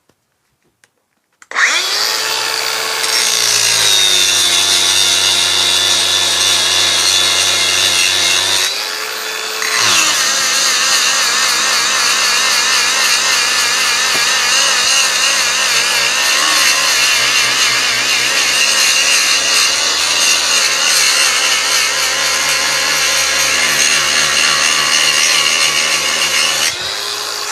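Makita DGA463 brushless cordless angle grinder switched on and spinning up, then grinding under heavy pressure. Its pitch drops as the disc is loaded, rises once partway through when the disc is briefly lifted off, and drops again on re-loading. It slows only a little under the force, then is switched off near the end and winds down.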